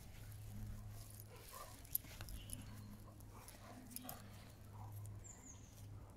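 Faint sounds of a dog rolling on grass and getting back up, over a low steady hum, with one sharp click about two seconds in.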